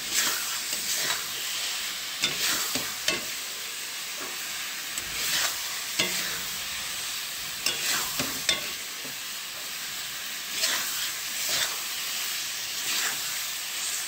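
Thick olive chutney sizzling in a metal kadai while a spatula scrapes and stirs it in irregular strokes, about one a second. The sugar has melted and the mixture is being cooked down until it dries.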